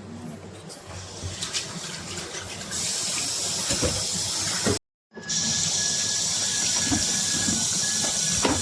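Water running from a kitchen tap, a steady hiss that starts about three seconds in after a few light knocks of handling. It cuts out completely for a moment about halfway, then runs on steadily with a faint high tone.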